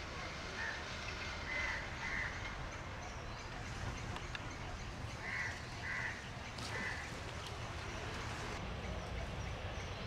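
Crows cawing, a handful of short caws, several in pairs, over a steady low background rumble.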